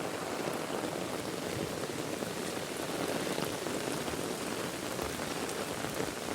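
Heavy rain pouring steadily, a dense even hiss of drops striking surfaces.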